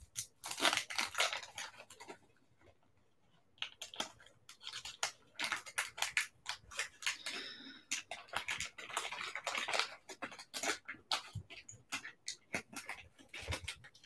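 Paper wrapper of a 1990 Fleer basketball card pack crinkling and crackling as it is peeled open by hand, in irregular bursts of rustle with a short pause about two seconds in.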